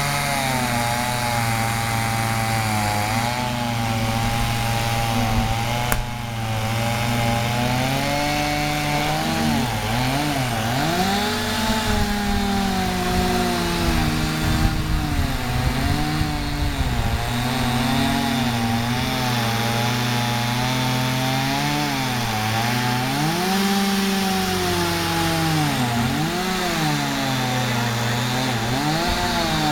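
Chainsaw running and cutting wood, its engine pitch dipping and climbing back again and again as it loads up in the cut. A second, steadier engine tone runs underneath.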